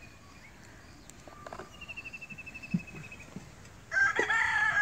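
A rooster crowing, one long call that starts about four seconds in and is the loudest sound. Before it, a faint high rapid trill is heard twice, with a few light knocks.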